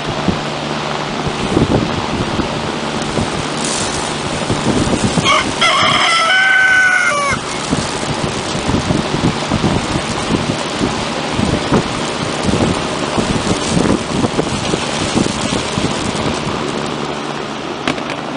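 A rooster crows once, about five seconds in, for roughly two seconds. Behind it runs a steady motor hum with a constant rushing noise and scattered knocks.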